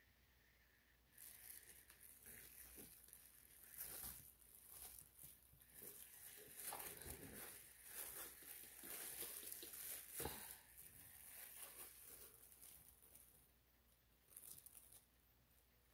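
Faint rustling and crinkling of plastic as a hand in a plastic bag grips and tilts a canvas. It starts about a second in and dies away near the end, with a short flurry just before the end.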